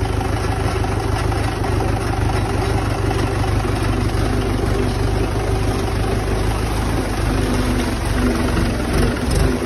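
Diesel engine of a Mahindra tractor running steadily while the tractor drives along a muddy track, heard close up from the driver's seat.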